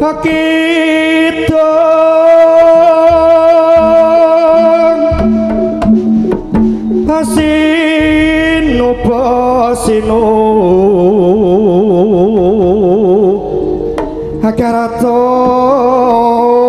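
Live jaranan gamelan music: hand-drum strokes under a long-held melody line that slides and wavers widely in pitch through the middle.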